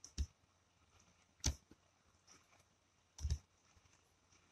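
Three short computer mouse clicks, the last a quick double, with near silence between them.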